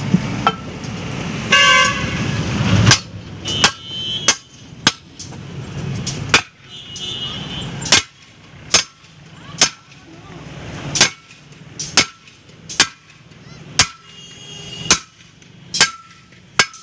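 Sledgehammer blows on the steel rim and tyre bead of a truck wheel, about one sharp metallic strike every 0.8 seconds from about three seconds in, working the bead off the rim by hand. A short horn-like toot sounds just before the hammering starts.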